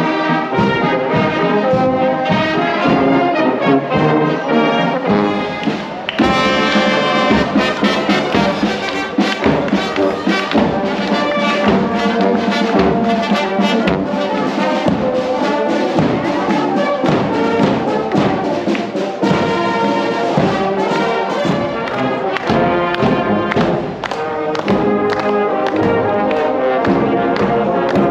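Brass band playing on parade, full brass sound of trombones and cornets with a steady beat.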